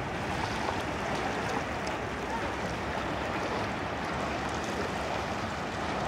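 Small waves of a calm sea washing at the shore, a steady, even hiss of water.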